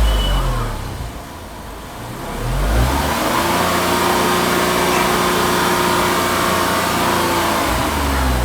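Tata Tigor BS6's three-cylinder petrol engine being revved with the bonnet open. It settles back toward idle in the first second, is revved up again about two and a half seconds in and held at a steady high speed for about five seconds, then starts to drop near the end. It peaks at about 78 dB on the meter.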